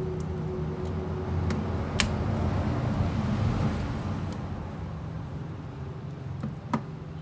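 Sharp clicks and taps of a phone battery being pulled free of its adhesive and lifted out of a vivo Y91's frame, the loudest about two seconds in and another near the end, over a steady low hum.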